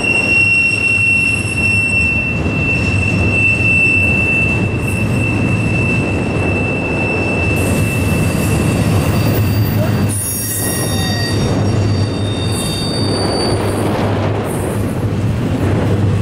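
Double-stack container train's well cars rolling past close by: a steady rumble of wheels on rail. A high wheel squeal holds through the first few seconds and fades, and several higher squeals sound together about ten to thirteen seconds in.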